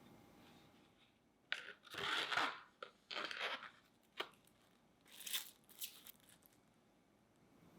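Plastic film being torn and crinkled by hand in several short, irregular bursts over about five seconds.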